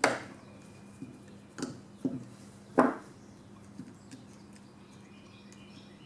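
A few short clicks and knocks of a small metal tool and carburetor parts being handled on a table, the loudest at the start and about three seconds in, over a faint steady hum.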